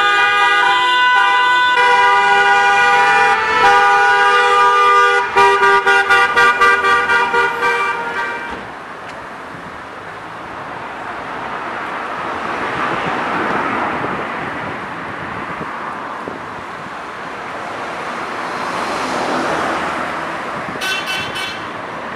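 Car horns blaring in a long held honk for several seconds, breaking into quick repeated toots, then road traffic: cars passing on a main road, swelling twice as vehicles go by.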